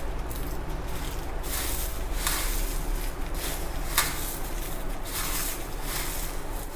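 Dry flattened rice flakes (avalakki) with grated coconut and spice powder rustling and crunching as a hand kneads and tosses them in a steel bowl, with one sharp click about four seconds in.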